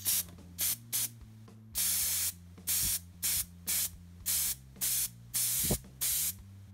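A Badger airbrush running off a can of propellant, spraying paint in a dozen or so short hissing bursts as its button is pressed and released, each under a second long: a test spray to check the flow.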